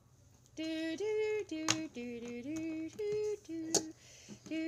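Someone humming a made-up tune in held notes that step up and down, starting about half a second in, with two sharp clicks partway through.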